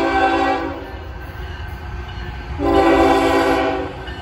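Union Pacific diesel locomotive's air horn sounding as the train approaches: one blast ends about half a second in, and after a pause of about two seconds a second blast lasts just over a second. The low rumble of the train runs underneath.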